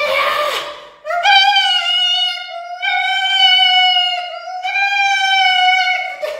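A woman's brief strained cry, then a high singing voice holding a steady, drawn-out 'aah' note, sustained in three long stretches with short breaks between them.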